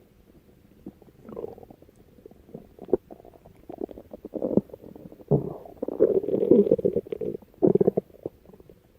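A person's empty stomach growling: a few short gurgles at first, then a long, wavering rumble in the second half.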